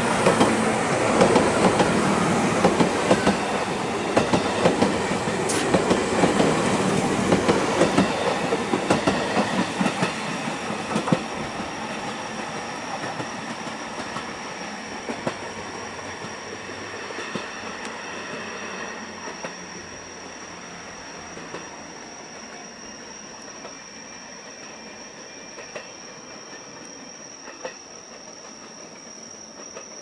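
JR 211 series electric train passing close at speed, its wheels clicking rapidly over the rail joints under the loud running noise of the cars and the growl of its traction motors as it accelerates. After about ten seconds the clicking thins out and the sound fades steadily as the train draws away.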